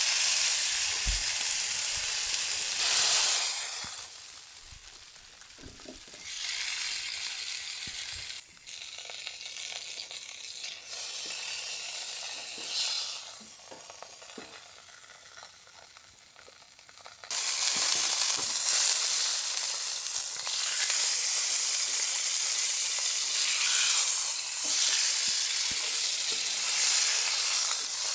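Steak sizzling. The sizzle is loud at first, dies down from about four seconds in, and comes back suddenly and loudly a little past the middle, with small clicks of utensils underneath.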